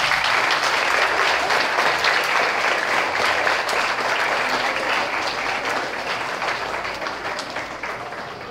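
Audience applauding, many hands clapping together, tapering off over the last few seconds.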